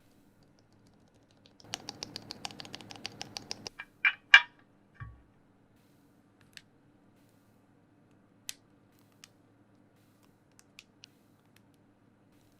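Typing on a Mountain Ergo custom mechanical keyboard with lubed, filmed Shiro linear switches (Durock Lavender and Lilac parts), an aluminium plate, foam and ePBT keycaps. It starts with a quick run of keystrokes, then come two louder clacks and a dull thump, then scattered single key presses.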